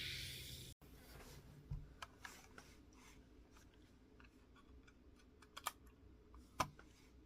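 A steady cooking hiss that cuts off abruptly under a second in, then faint, scattered light clicks and taps, two of them a little louder near the end.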